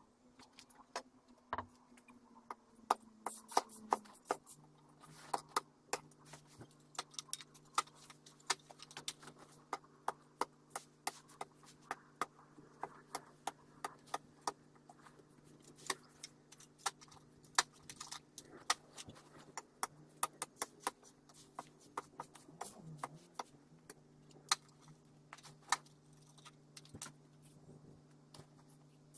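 Irregular sharp clicks and light knocks, at times several a second, over a faint steady hum.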